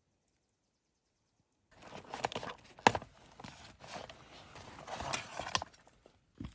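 Silence for nearly two seconds, then footsteps of a person walking on a wet forest floor, with irregular steps and one sharper step about three seconds in.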